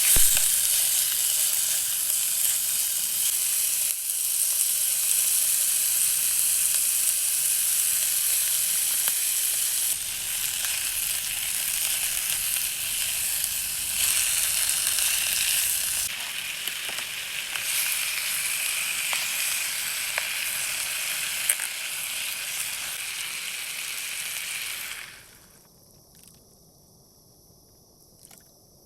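Food sizzling and frying in a pan over a camp stove, a steady, hissing crackle that cuts off abruptly near the end.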